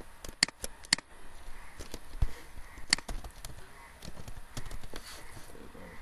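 Computer keyboard keys being pressed: four quick clicks in the first second, then single clicks spaced out after that.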